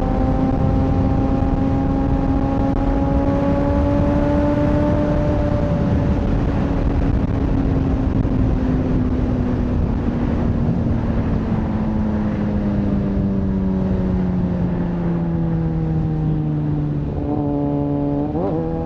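Kawasaki ZX-6R inline-four engine pulling on the road under heavy wind noise. Its note rises slowly for a few seconds, then sinks gradually as the bike eases off, and near the end there are quick rev blips.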